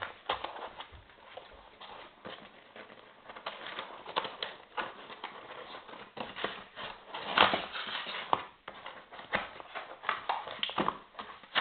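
Packaging and accessories being handled by hand: irregular knocks, clicks and rustles, with the loudest knock about halfway through.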